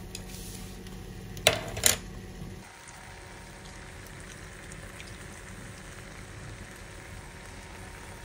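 Food cooking in a pan on the stove, a steady hiss, with two sharp knocks about a second and a half in. A low hum under it drops out a little before three seconds in.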